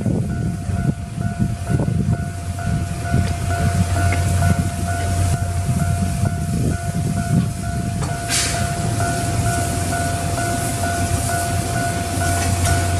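Japanese railway level-crossing warning bell ringing at about two strikes a second over a train's steady low rumble, with a short hiss about eight seconds in.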